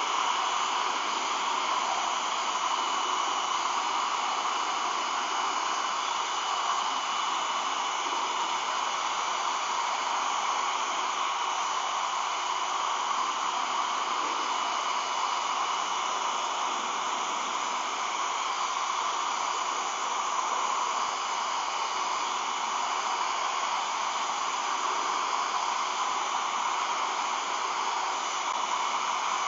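Hair dryer running steadily on one setting, a constant hiss of blown air with a faint steady whine, heating clear vinyl so it can be stretched over a curved goggle lens.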